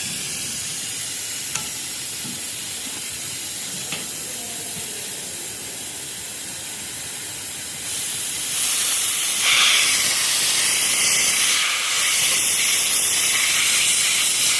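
Pressurised gas hissing steadily out of the opened pipework of a package air-conditioner coil. It grows louder about eight seconds in and again near ten seconds, then cuts off abruptly at the end.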